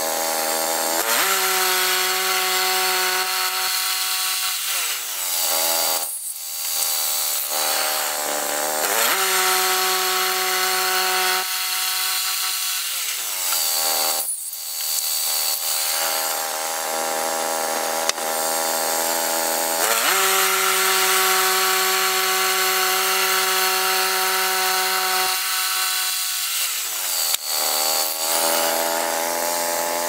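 Woodland Mills portable band sawmill's gasoline engine running at high speed while the band blade saws a log. The engine speed is taken up and let down three or four times, the pitch sliding up or down each time, with brief lulls around six and fourteen seconds in.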